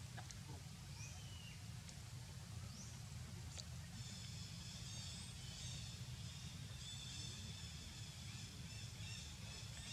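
Faint outdoor ambience with a low rumble: a few short, high bird chirps in the first few seconds, then from about four seconds a continuous high, pulsing chirping chorus.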